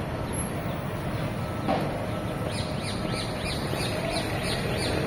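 A bird chirping, a quick run of short falling chirps, about three or four a second, starting about halfway through. Underneath is a steady low rumble of street traffic, with one brief knock about a third of the way in.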